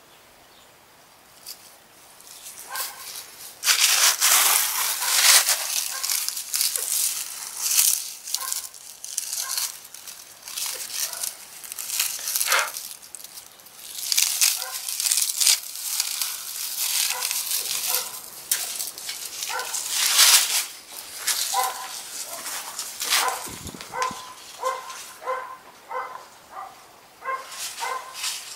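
Dry leaf litter crackling and rustling in irregular bursts as a Greek tortoise pushes through it. Near the end, a run of short, evenly spaced, high-pitched calls sounds in the background.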